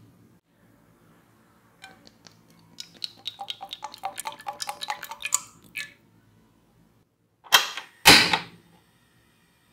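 Cooking oil poured from a bottle into a pan, glugging and splashing in quick uneven pops for a few seconds. Then, near the end, a gas stove burner is lit: two loud rushing bursts as the gas catches, the second longer and louder.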